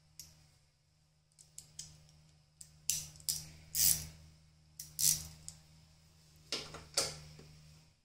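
Metal hand tools being handled: about a dozen sharp clicks and short metallic scrapes, the loudest in the middle and near the end, over a faint steady low hum.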